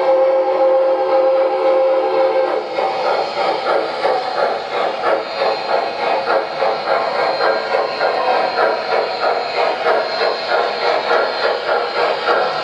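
MTH Premier New York Central Mohawk O-gauge model locomotive's onboard sound system: a chime steam whistle held for about two and a half seconds, then steady rhythmic steam chuffing as the engine runs.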